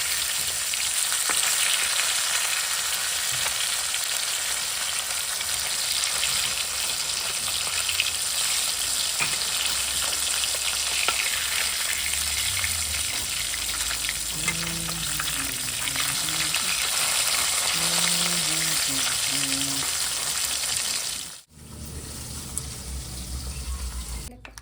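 Food sizzling in hot oil in a pan, a steady frying hiss with scattered pops and stirring scrapes. It cuts out briefly near the end.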